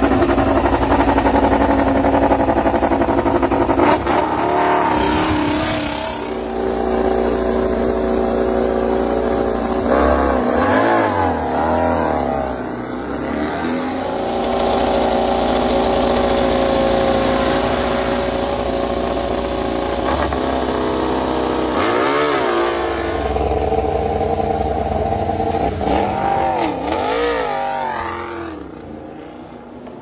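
MotoGP prototype racing motorcycles, four-cylinder 1000 cc engines, running at a fast idle with sharp throttle blips, the pitch jumping up and falling back about ten seconds in, again around twenty-two seconds and near twenty-six seconds. It gets quieter near the end.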